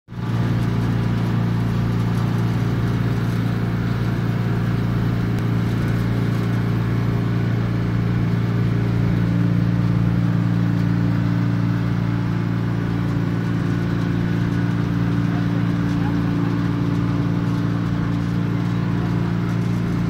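Steady, loud hum of a running refrigeration condensing unit: the two-stage piston compressor and its condenser fans, with a low droning tone throughout and a higher tone coming in about halfway.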